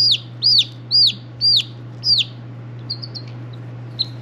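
Two-day-old chick peeping loudly and repeatedly, about two shrill peeps a second, each rising briefly then falling in pitch. The loud peeps stop a little past two seconds in, followed by a few faint, short peeps.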